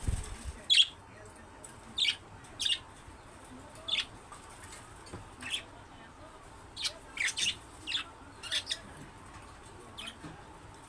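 Budgerigars chirping: short, high chirps every second or so, some in quick pairs or runs. A brief low thump right at the start.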